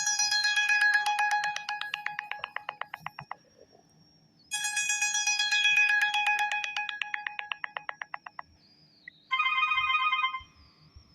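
Sony Xperia L4's built-in ringtone sounds played through the phone speaker: a bright chime with fast pulses that fade out, heard twice, then a different short tone near the end.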